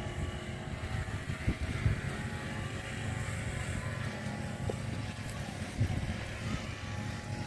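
Small engine of a grass cutter (brush cutter) running steadily and faintly, a low continuous drone with a faint steady whine above it.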